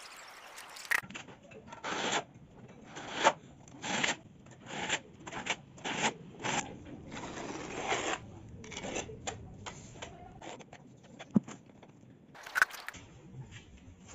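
A steel trowel scraping through cement mortar in a quick run of short, rasping strokes as the mortar bed is spread and combed into ridges.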